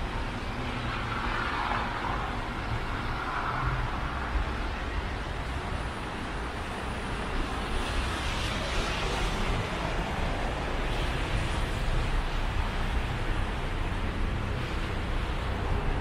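City traffic noise: cars passing on a wet, slushy road, their tyres hissing, swelling louder twice, about a second in and again near the middle. A steady low rumble of wind on the microphone runs underneath.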